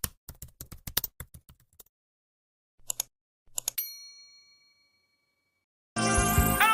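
A quick run of sharp clicks like typing, a few more clicks, then a single bright ding that rings out and fades. Music starts near the end.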